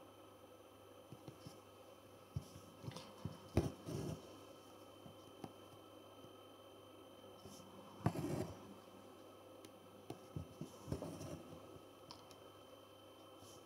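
Quiet sounds of hand embroidery: soft clicks, then short rasps as a needle and thread are pushed and drawn through stretched fabric while satin stitches are worked. A run of clicks comes a few seconds in, and rasps about eight seconds in, again around eleven seconds and near the end.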